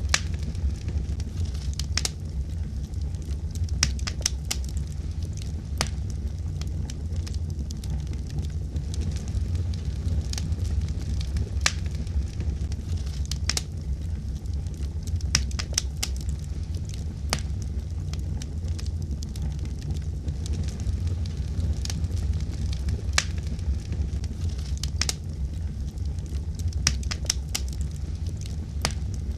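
Wood fire burning, with a steady low rumble of flame and irregular sharp crackles and pops from the burning wood.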